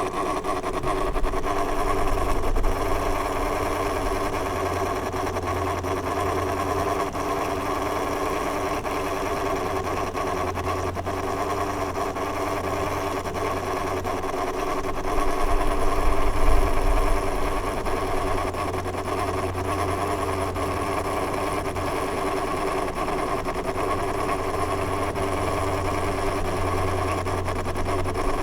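Electric fan running steadily: a constant motor hum and buzz under the rush of air, swelling slightly about halfway through.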